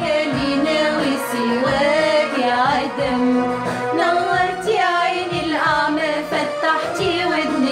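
Women singing an Arabic Coptic hymn with melodic, wavering lines over instrumental accompaniment.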